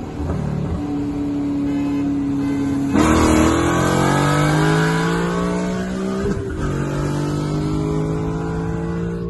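A car engine goes from steady cruising to full throttle about three seconds in, heard from inside the car in a 45 mph roll race. The revs climb, break for an upshift about six and a half seconds in, then climb again.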